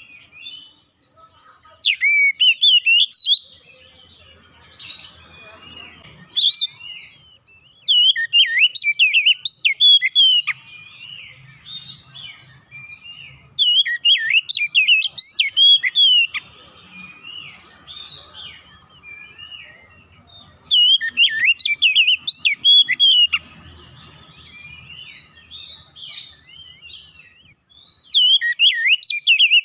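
Oriental magpie-robin (kacer) singing freely: five loud bursts of rapid, varied whistled phrases, each a second or two long, a few seconds apart.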